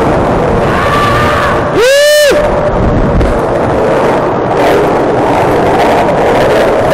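Loud, distorted noise of a car doing burnouts close by, its engine and spinning tyres overloading the microphone. One long shout rises and falls about two seconds in.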